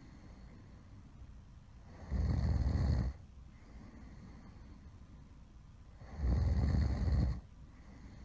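A person snoring loudly: two deep snores about four seconds apart, each lasting about a second.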